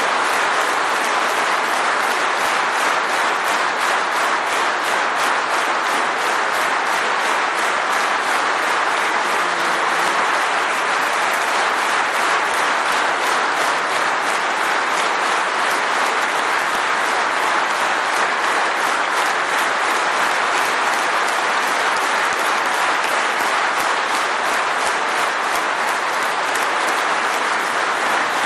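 A large audience applauding: many hands clapping in a dense, steady mass that holds at an even level throughout.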